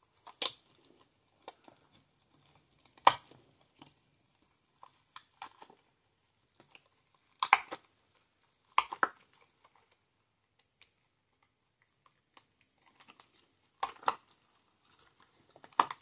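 Silicone mold being flexed and peeled off a cured resin snowflake candle holder: irregular sharp clicks and snaps with soft rubbery rustling between.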